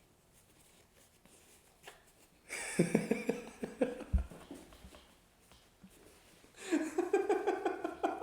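A person laughing in two bouts, one about two and a half seconds in and another near the end, after a quiet start.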